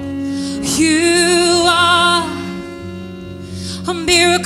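Woman singing a slow worship song with a live band backing her, holding a long note with vibrato. She stops briefly past the middle while the band plays on, then comes back in near the end.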